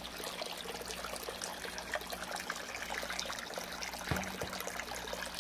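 Cleaning solution pumped in reverse through a plate chiller pours from a hose into a tray of water, splashing and trickling steadily over a low hum.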